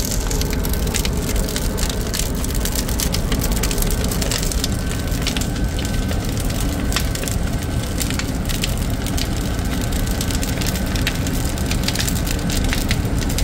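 Fire burning in the open firebox of a Cochran boiler: a steady low rumble with constant crackling and snapping, and a faint steady high tone underneath.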